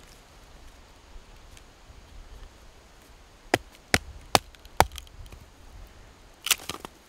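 Wood being struck in chopping blows: four sharp knocks about half a second apart, then a quick cluster of knocks near the end.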